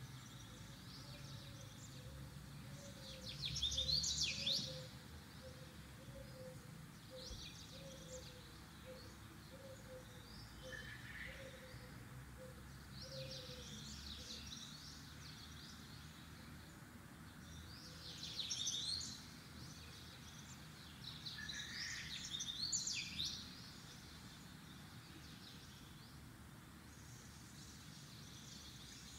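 Birds chirping in several short bursts of quick, high calls, the loudest about four seconds in and two more in the second half, over a steady low background hiss. A faint, evenly repeated note sounds through the first half.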